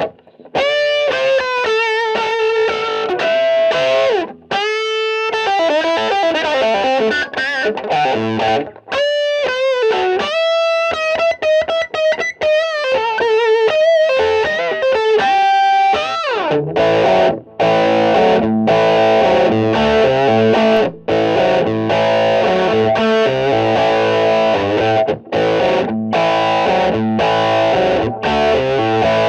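Distorted electric guitar played through a MOTHER VIVID 3-band EQ for demonstration. It plays a single-note lead line with vibrato and string bends, then switches to full chords with short breaks about sixteen seconds in.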